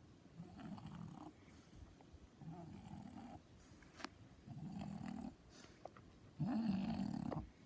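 French bulldog snoring: four rasping snore breaths about two seconds apart, the last one the loudest.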